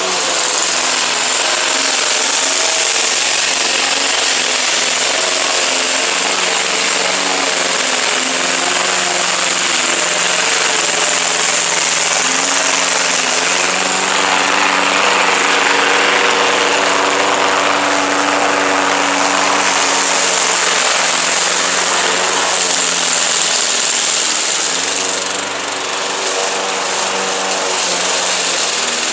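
Craftsman 21-inch push mower with a Briggs & Stratton 550-series 140cc engine running steadily while cutting thick, overgrown grass, its pitch wavering a little under the load. It is louder midway through, as the mower passes close.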